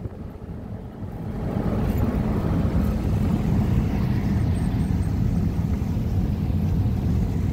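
Road and engine noise from inside a moving vehicle's cabin: a steady low rumble that grows louder about a second and a half in and then holds.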